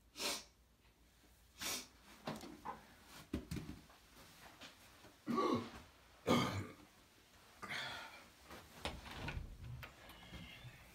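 A man coughing and gagging in a series of short bursts at a bad smell.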